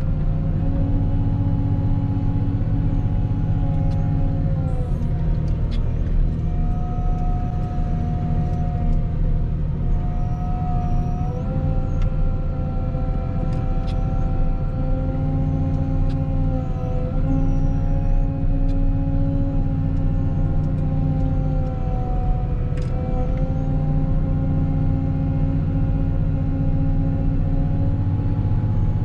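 Volvo L60H wheel loader running under load, heard from inside the cab: a loud steady drone with whining tones above it that dip and rise together a few times as engine speed changes.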